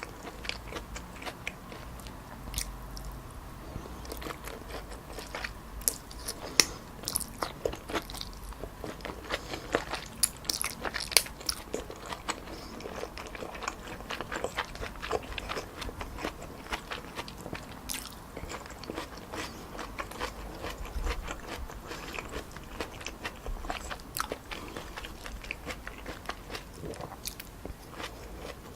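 Close-miked eating of stir-fried wide glass noodles with pork and vegetables: chewing with wet mouth clicks and crunches coming irregularly, several a second.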